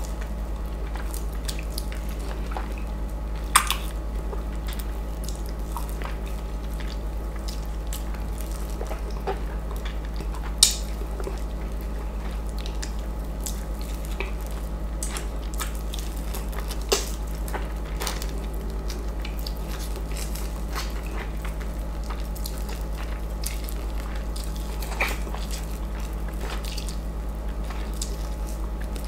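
Close-up wet eating sounds of a ripe East Indian mango being sucked and bitten off the fruit by mouth: soft squishy slurps and lip smacks, with a few louder wet smacks spaced through it, over a steady low hum.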